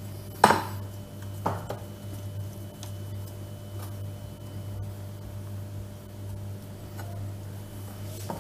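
A utensil knocking against a mixing bowl while cocoa batter is stirred: a sharp knock about half a second in, a smaller one about a second later, then faint ticks.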